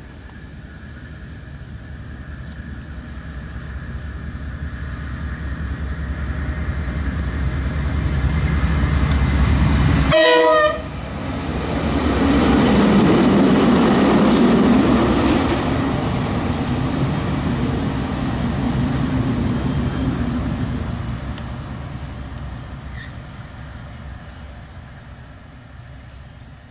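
KiwiRail DL-class diesel-electric locomotive running, its engine rumble growing steadily as it approaches. There is a sudden short break about ten seconds in, then loud engine and running noise as it passes close by, slowly fading as it moves off.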